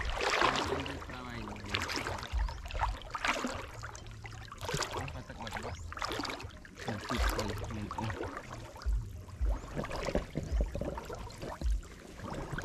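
Water sloshing and splashing in irregular swishes, with some low bumps.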